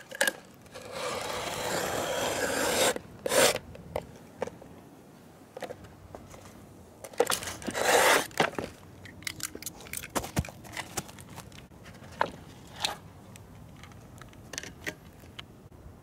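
Utility knife slicing through roofing felt (tar paper) along a board used as a straightedge. There are two long scraping cuts, one lasting about two seconds from a second in and another about seven seconds in. Between and after them come shorter scrapes and rustles of the stiff paper being handled.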